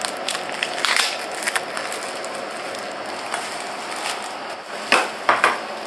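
Clear plastic bag crinkling and rustling as hands pull it off new chair parts, with a few sharper crackles, the loudest about five seconds in.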